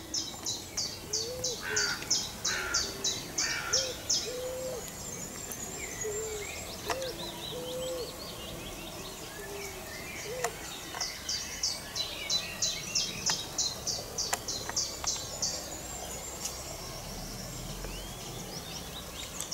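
Woodland birdsong: a small bird repeats a high, sharp note about four times a second in two long runs, with a string of low cooing calls beneath it in the first half.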